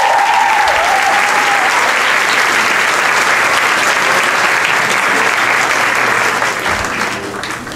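Audience applauding after a dance, with one spectator's long, high cheering call over the first second or so; the applause dies away near the end.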